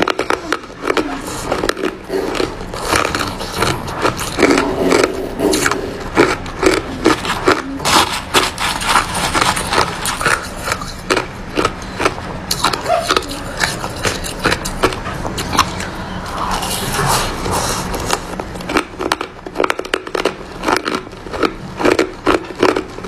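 Crushed ice being crunched between the teeth close to the microphone, a rapid irregular run of crisp cracks, along with a metal spoon scraping up ice from a plastic tub.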